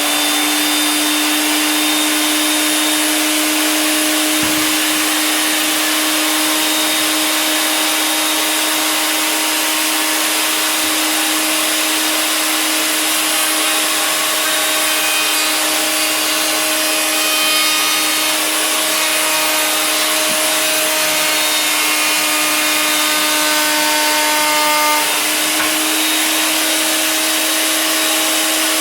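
Harbor Freight 1 3/4 HP router in a router table running at full speed with a round-over bit, a steady loud high whine. Its pitch lifts slightly near the end.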